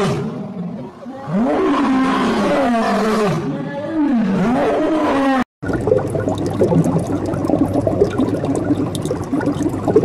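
Male lion roaring in a run of long calls that rise and fall in pitch. About five and a half seconds in, it cuts off abruptly and a steady, rough, noisy sound takes over.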